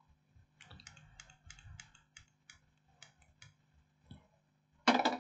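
A run of about a dozen faint, light clicks at an uneven pace, then a short, much louder sharp noise just before the end.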